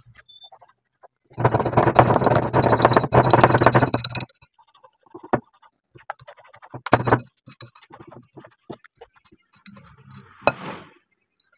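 Wire whisk beating thick fruit-cake batter in a glass bowl, clinking and scraping against the glass. A spell of fast beating runs from about a second and a half in to about four seconds, followed by slower, separate strokes and taps while the batter is checked for consistency.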